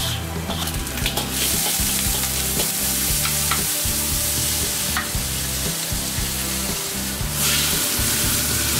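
Meat and vegetables sizzling loudly in a hot wok, starting about a second in as they hit the oil, while a metal ladle stirs them with a few light scraping clicks.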